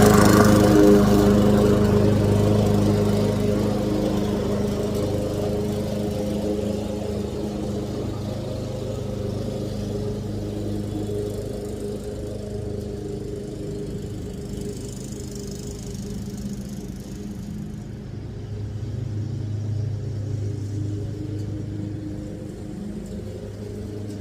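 Petrol lawn mower engine running steadily at a constant speed. Loudest at the start, it fades over the first several seconds and swells briefly about two-thirds of the way through.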